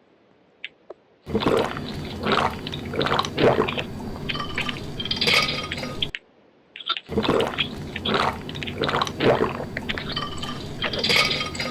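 Close-miked sounds of someone drinking water, with liquid and wet mouth and swallowing sounds, in two stretches of about five seconds broken by a brief pause.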